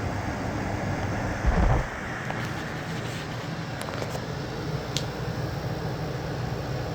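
8000 BTU portable air conditioner running on max, a steady fan and compressor hum with rushing air. A brief low thump about a second and a half in.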